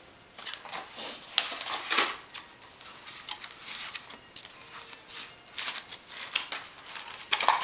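Cardboard box and its packaging being opened and handled by hand: irregular rustling with scattered light clicks and crinkles, louder about two seconds in and near the end.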